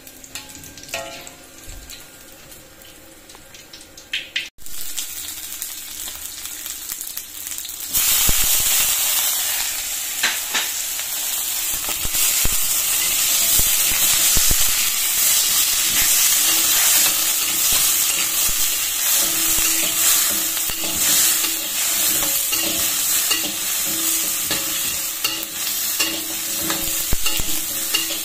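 Shallots, garlic and shrimp sizzling in hot oil in a wok, stirred and scraped with a metal spatula. The sizzle turns loud about eight seconds in and stays loud.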